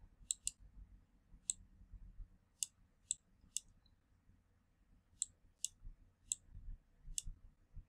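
Computer mouse button clicking about ten times at an irregular pace, sometimes two in quick succession, as points are placed with Illustrator's pen tool. A faint low room hum lies underneath.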